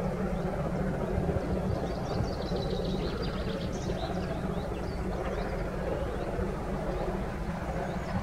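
Birds chirping over a steady low rumble in open country.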